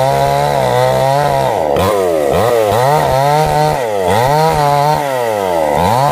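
Two-stroke chainsaw cutting through a felled tree trunk at full throttle, its engine note sagging under load and picking up again about once a second as the chain bites into the wood.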